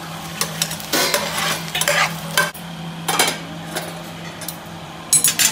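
Metal spatula scraping and knocking against a frying pan as sautéed onions are scraped out, in irregular strokes about every second, over a steady low hum. The loudest clatter comes near the end.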